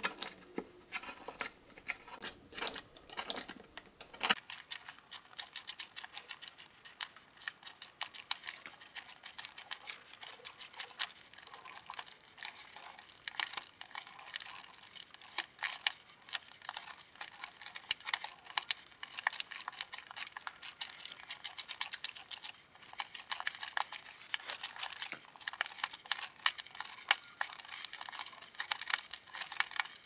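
Swiss Army knife blade cutting and scraping into a wooden block: a dense run of quick, crisp cuts and scrapes as the hollow of a spoon bowl is gouged out. The sound becomes closer and sharper about four seconds in.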